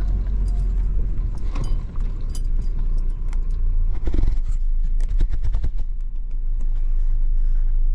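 Vehicle driving slowly over a rough dirt track, heard from inside the cab: a steady low engine and road rumble with many scattered knocks and rattles as it jolts along.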